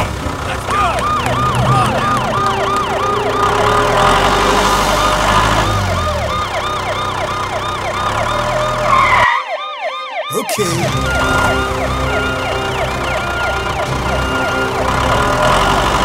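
Electronic emergency siren yelping, a quick rising-and-falling wail repeating about three times a second, over background music.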